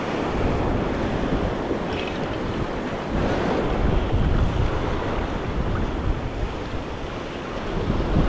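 Wind buffeting the microphone over small waves washing up a sandy beach.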